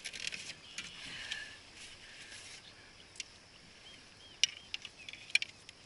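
Scattered sharp clicks and light knocks of handling on a plastic fishing kayak as a just-caught flounder and gear are moved about, with three faint short chirps near the middle.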